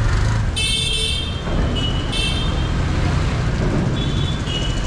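Road traffic at a junction: vehicle engines running steadily with several horn honks, one longer honk about half a second in, another about two seconds in, and two short toots near the end.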